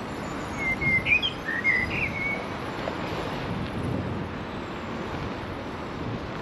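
A bird chirps a quick run of short, sliding notes about half a second to two and a half seconds in, over a steady rush of traffic and wind noise.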